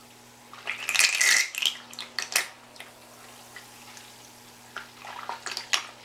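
Canister vacuum motor and impeller running submerged in a tub of water, splashing and spattering the water in irregular bursts over a steady low hum. The impeller is churning the water and sucking in air at the surface.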